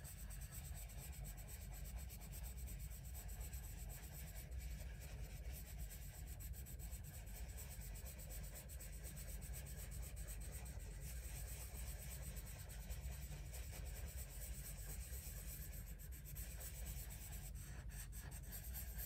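Faber-Castell Polychromos oil-based coloured pencil rubbing lightly on paper in small circles, a soft steady scratching. The paper is dusted with a powder blender, so the pencil lays colour down with barely any pressure.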